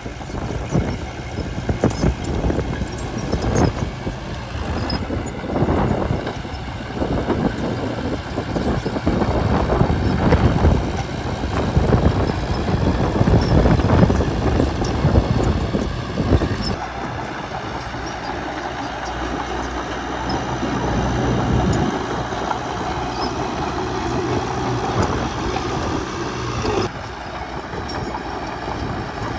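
Crawler bulldozer working, its diesel engine running under irregular clanking and knocking from the steel tracks and blade. About two-thirds of the way through the clanking stops abruptly and a steadier engine note with a low hum remains.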